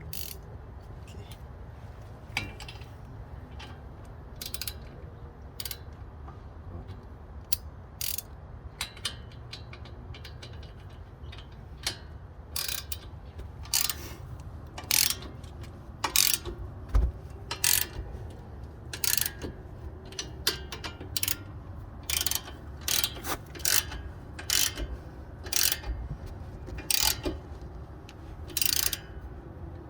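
Hand ratchet wrench clicking as fasteners are tightened back in during brake reassembly. The clicks come in short irregular runs, more often in the second half.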